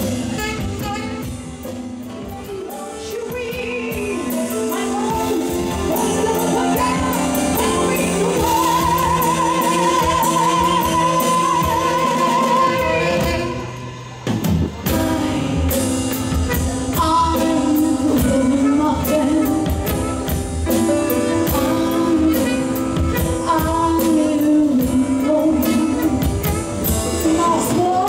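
Live band with a female singer, drum kit and keyboard: a long sung note with wide vibrato held for several seconds, a brief drop near the middle, then the singing and band carry on.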